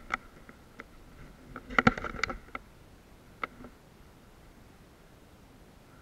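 Scattered knocks and crunches of someone moving over a rubble-strewn floor, with a quick cluster of sharp, loud knocks about two seconds in and a single knock a little later.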